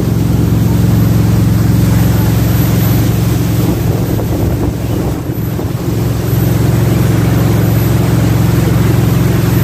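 Jet boat's engine running steadily, its even drone under a steady rushing noise, dipping slightly about halfway through.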